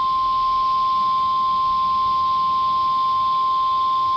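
NOAA Weather Radio 1050 Hz warning alarm tone: one steady, loud pure tone over radio hiss, the signal that a new warning broadcast is about to follow.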